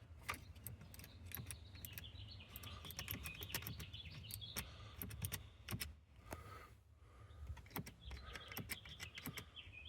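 Faint scattered clicks and rattles of wiring and plastic connector parts being handled and fitted, with birds chirping in the background.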